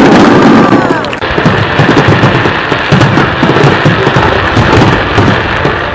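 Fireworks display: a dense, continuous barrage of bangs and crackling from bursting shells, dipping briefly about a second in before the rapid reports carry on.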